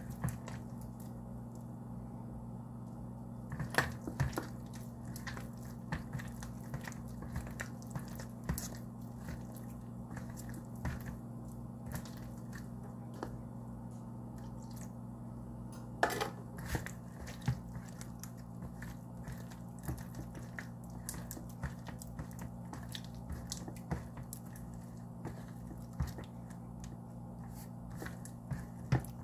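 A hand mixing flour and water into a wet bread dough in a plastic bowl: soft squishing with scattered taps and scrapes, a few of them louder, over a steady low hum.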